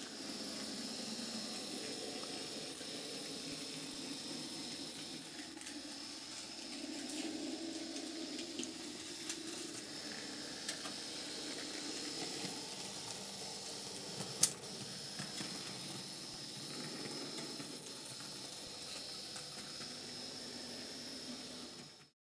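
Small 12-volt model tram drive (a Haling traction unit) running steadily, a constant hiss with a thin high whine, with scattered light clicks from the wheels on the model track. One sharper click comes a little past the middle.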